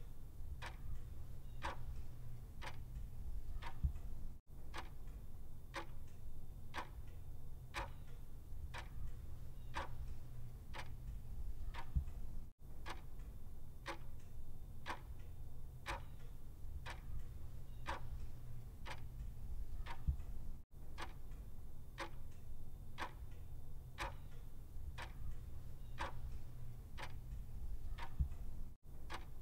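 Clock ticking evenly, about two ticks a second, over a low steady hum. The ticking breaks off in a brief gap about every eight seconds.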